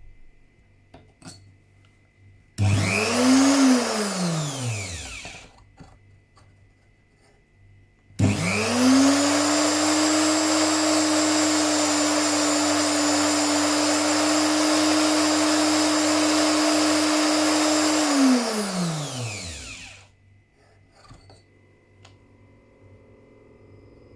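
Neutrix WAG40 tungsten electrode grinder switched on briefly about two and a half seconds in, then switched off and spinning down. It is switched on again for about ten seconds of steady high motor whine with grinding hiss as a new TIG electrode is ground to a point, then falls in pitch as it winds down. Light clicks of handling come before and after.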